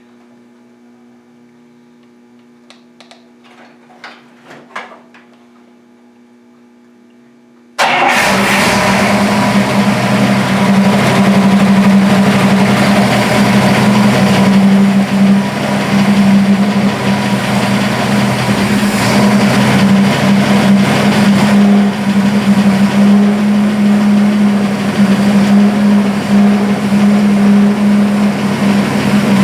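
1955 Buick 322 Nailhead V8 running steadily, coming in suddenly about eight seconds in after a few faint clicks. It sounds better with its valve covers refitted and tight; the owner thinks the knock he had was a loose valve cover hitting a rocker.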